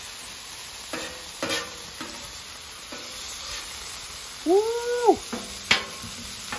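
Hamburger patties and onions sizzling steadily on a flat-top griddle, with metal spatulas clicking and scraping on the steel as the patties are flipped. About four and a half seconds in comes a short pitched cry that rises and then falls, followed by two sharp clicks.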